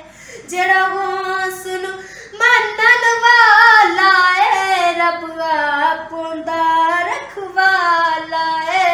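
A young woman singing a Punjabi Sufi kalaam solo, without instruments, drawing out long held notes that waver and slide in pitch. There is a short break about two seconds in, and she is loudest just after it.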